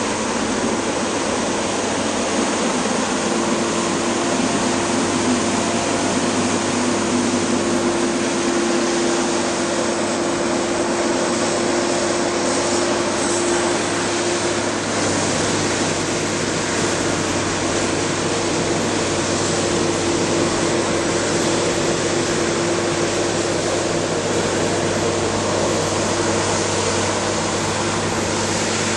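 Diesel engine of a heavy logging machine running steadily, a constant hum under a wide wash of mechanical noise.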